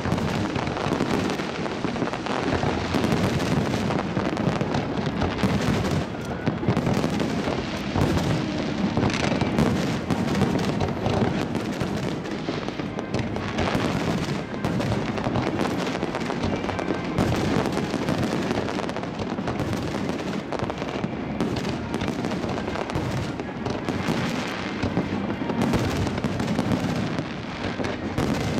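Fireworks display: a dense, unbroken barrage of shell bursts and crackling.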